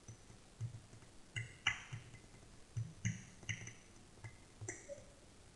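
About a dozen faint, irregular clicks and ticks, several of them with a brief high squeak.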